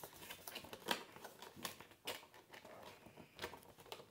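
Headset packaging being handled: scattered light taps and faint rustles of the cardboard box and its contents.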